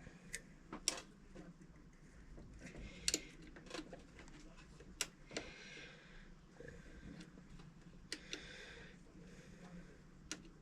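Faint scattered clicks and light rustling of hands working stiff welding wire into a MIG welder's wire feeder.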